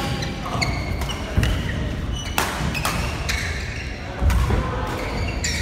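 Badminton rackets striking a shuttlecock in a fast doubles rally, a sharp smack roughly every second, with sports shoes squeaking on the court floor between hits.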